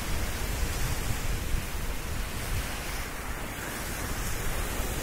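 Sea surf washing onto a sandy beach: a steady rushing hiss, with gusty wind noise on the microphone fluttering in the low end.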